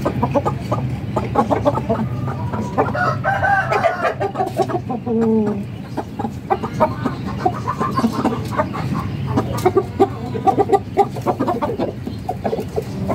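Chickens clucking in quick, short notes throughout, with a longer wavering rooster call, a crow, about three seconds in.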